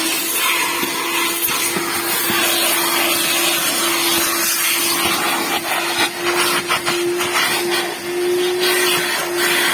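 A small electric motor running at a steady speed: an even whining hum over a rushing hiss, with irregular clicks and crackles in the second half.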